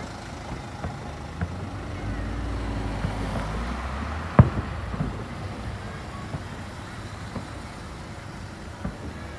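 Distant aerial fireworks going off in scattered dull thuds, with one sharp, louder bang about four and a half seconds in. A passing road vehicle adds a low rumble for a couple of seconds before that bang.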